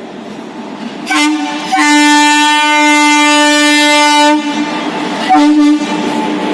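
Arriving Indian Railways train's locomotive horn: a short blast, a long blast of about two and a half seconds, then another short blast. The rumble of the approaching train rises beneath it.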